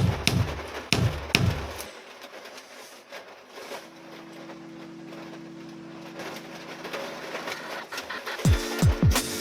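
Background music. A regular beat stops about two seconds in, a held low chord follows, and near the end the beat comes back with deep bass kicks that fall in pitch.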